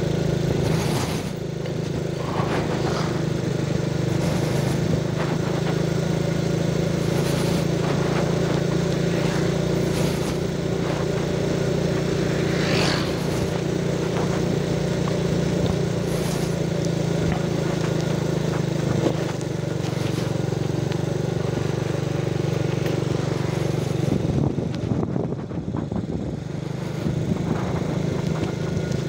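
Small motorcycle engine running at a steady cruising speed while riding, with wind and road noise. It eases off briefly near the end.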